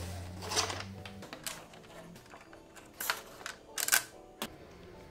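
Clicks and knocks as a red elastic cord is unhooked and pulled off a wooden drawer, with a few sharp knocks about three to four seconds in. A low hum stops about a second in.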